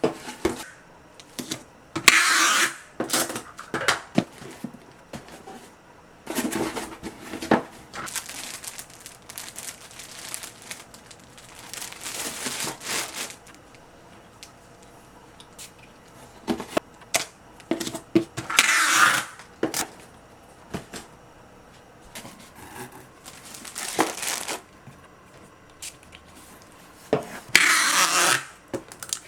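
Close handling noises: about half a dozen bursts of rustling and crinkling, as of paper or plastic being handled, with small clicks and taps between them.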